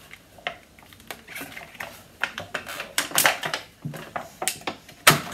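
Thin clear plastic packaging crackling and clicking as a butterfly stepping stone is pried out of its blister tray, in irregular crackles that are thickest about three seconds in, with one sharp snap near the end.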